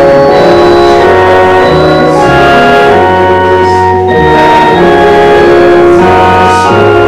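Church organ playing slow held chords over a bass line, the chords changing about every second or two.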